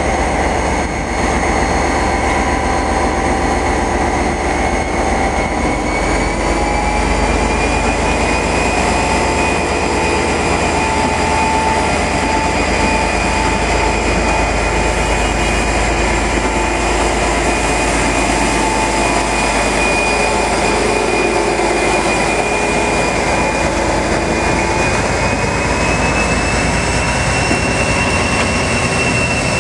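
Class 57 diesel-electric locomotive 57601 under power as it hauls coaches slowly past. Its engine note carries a high turbocharger whine that climbs a little about seven seconds in and again near the end.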